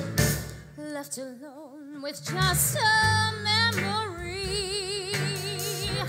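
A woman singing a 1960s-style pop song with strong vibrato, backed by a live band. About a second in the band drops away, leaving her voice nearly alone, and it comes back in about two seconds in under long held notes.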